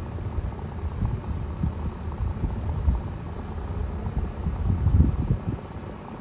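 Wind buffeting the microphone: an uneven low rumble that swells in gusts, loudest about five seconds in.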